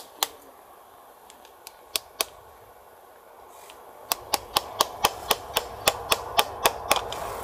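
Sharp metal-on-metal taps on a screwdriver set against the rusted pivot pin of the parking-brake lever on an old rear drum-brake shoe, working the lever free. A few scattered taps at first, then a quick run of about four a second over the last three seconds.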